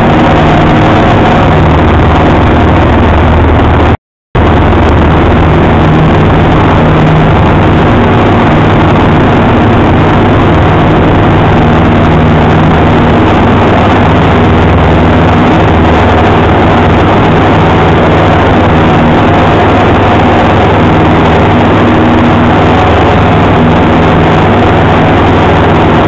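Cessna 172 Skyhawk's piston engine and propeller at takeoff power through the takeoff roll and lift-off: a loud, steady drone heard inside the cockpit. The sound drops out completely for a moment about four seconds in.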